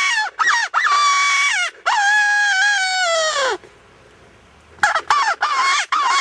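Hunter's predator call blown to lure a coyote in: drawn-out wavering wails, the last of them about a second and a half long and falling in pitch as it trails off, then after a short pause a run of short, quick notes.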